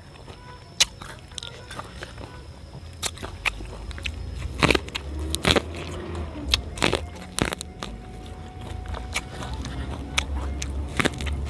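Close-up biting and chewing of raw purple corn kernels off the cob: sharp, irregular crunches and clicks. A low steady rumble runs underneath.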